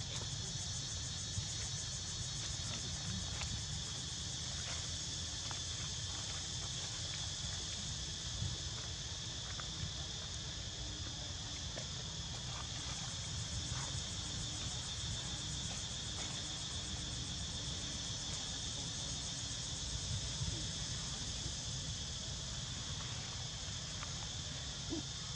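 A steady, high-pitched chorus of insects, with a low rumble underneath and a few faint clicks.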